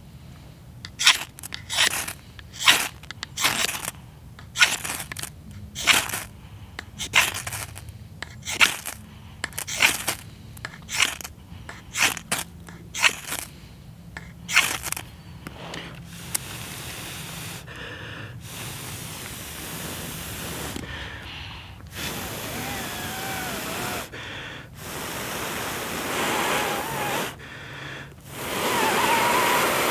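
A ferro rod scraped hard with a knife, about twenty quick strikes over the first fifteen seconds, throwing sparks onto dried cramp ball fungi (Daldinia concentrica). Then long, steady breaths blown onto the smouldering fungi in repeated stretches with short pauses, to nurse the damp, fragile embers.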